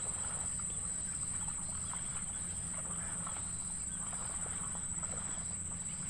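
Steady high-pitched insect drone, like a field of crickets, with a low steady rumble underneath and scattered faint ticks and rustles.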